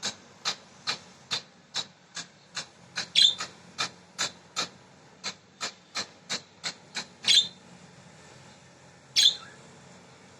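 Pet budgies: a run of sharp, evenly spaced taps, about two or three a second, that stops about seven seconds in, with three short louder squawks.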